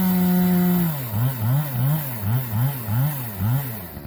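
Husqvarna 576 XP two-stroke chainsaw running flat out with a steady high note. About a second in it drops to a lower speed, and its pitch then surges up and down about twice a second before it falls away near the end.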